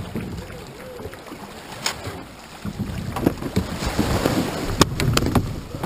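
Kayak hull running aground and scraping up a wet concrete slipway, with several sharp knocks, starting about two and a half seconds in. Before that, water sloshing and wind on the microphone.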